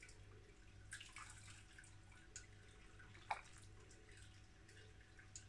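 Faint dripping and trickling of hot sparge water draining through a mash grain bag into the brew pot, with one sharper tap about three seconds in, over a faint steady low hum.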